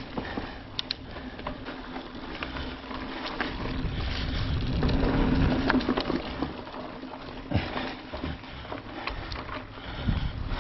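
Mountain bike riding noise on a dirt trail: tires rolling, rumbling wind on the microphone that swells and fades, and scattered sharp clicks and knocks from the bike over rough ground.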